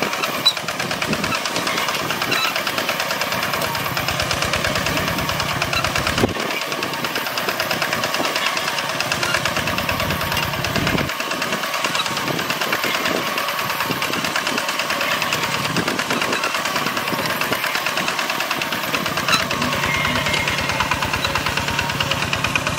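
Old tractor engine running steadily under plowing, with a fast, even firing beat and now and then a sharp click.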